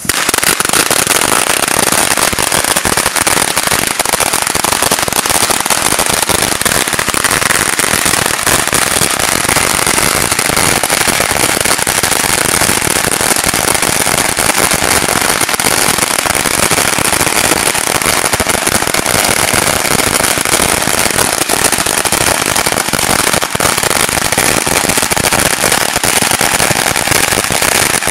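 A roll of 4,000 firecrackers going off: a dense, rapid string of bangs with no gaps, starting abruptly and holding a steady loud level.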